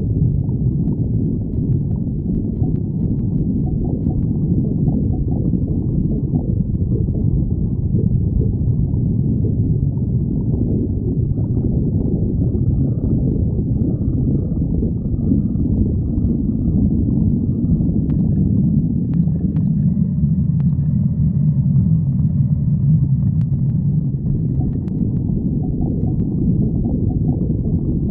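Human stomach growling: a continuous low rumble that turns into a steadier, stronger low hum about two-thirds of the way through.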